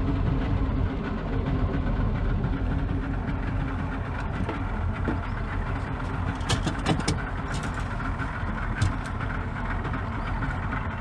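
Fishing boat's engine running steadily, with a few sharp clicks or knocks a little past the middle.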